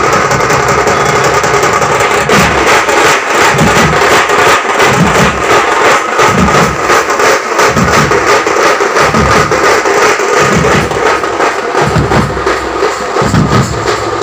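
Street drum band of large double-headed bass drums beaten with sticks, playing a loud, fast rhythm: deep beats recurring under a dense clatter of rapid stick strokes.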